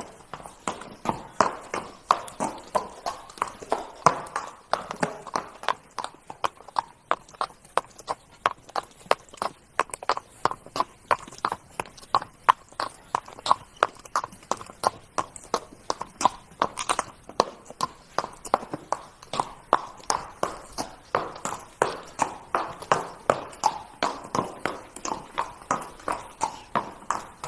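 Horse trotting: a steady, even rhythm of hoofbeats, about two or three a second.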